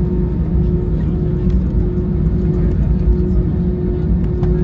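Airbus A320 cabin noise with the engines running: a loud, steady low rumble with a steady hum over it.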